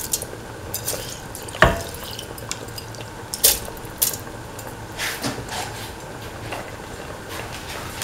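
Washed, soaked rice being put by hand into a steel pot of coconut-milk curry, with soft wet splashes and a few sharp knocks against the pot, the loudest about one and a half seconds in.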